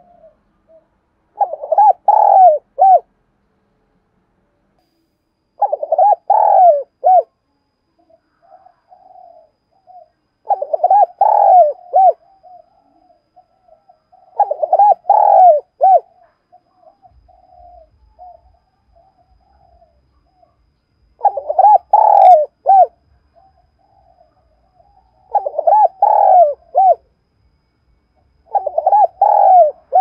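Spotted dove cooing: seven loud phrases of several quick coos each, one about every four seconds, with soft low coos in between.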